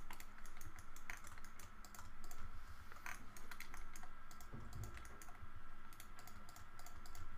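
Computer keyboard and mouse clicking: irregular keystrokes and button clicks, sometimes in quick clusters.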